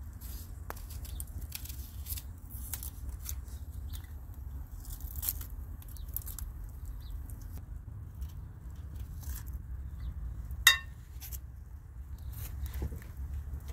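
Dry onion skin crackling and rustling as it is peeled and cut away with a small knife, heard as many short faint scratches. Late on there is a single sharp clink as the knife is set down on a ceramic plate.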